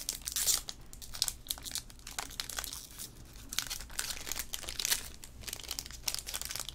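Foil wrapper of a Tier One baseball card pack crinkling and crackling irregularly as hands work it open.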